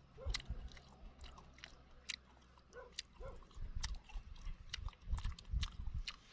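A person chewing and crunching food close to the microphone, with scattered sharp clicks and irregular low bumps.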